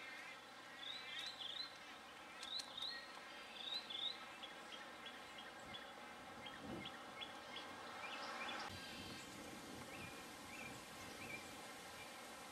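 Faint outdoor ambience with repeated short, high bird chirps, coming in quick runs and then in a steady series of about three a second.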